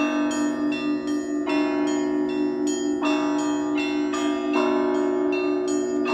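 Church bells ringing: several bells of different pitch struck in a quick repeating pattern, roughly two strikes a second. Heavier strikes come about every second and a half, over a constant low bell hum.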